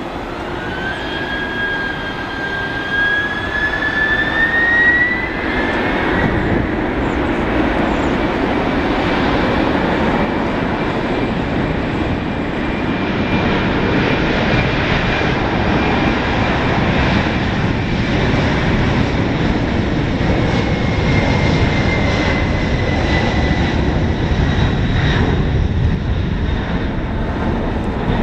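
McDonnell Douglas MD-11F's three turbofan engines spooling up to takeoff power, a whine rising in pitch over the first five seconds or so, then a steady jet roar with a held high tone as the freighter takes off.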